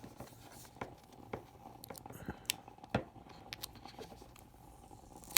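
Knife cutting into plastic retail packaging: scattered scratching and small clicks, with a sharper snap about three seconds in and another near the end.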